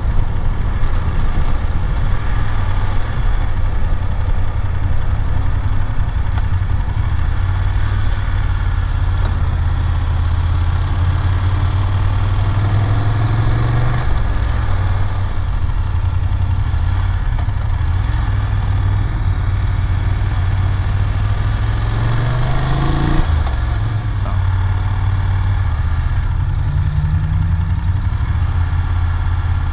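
A BMW F750GS motorcycle's parallel-twin engine running at town speed under the rider, with a haze of wind noise. Its pitch rises as it accelerates about twelve seconds in, again a little after twenty seconds, and once more near the end.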